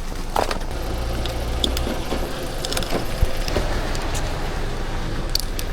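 A car engine running steadily at low revs, with a few light clicks and knocks over it.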